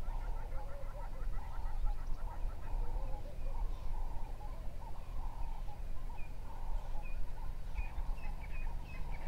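Birds calling over a steady low rumble: repeated short calls throughout, with a quick run of higher chirps in the first few seconds and scattered higher chirps in the second half.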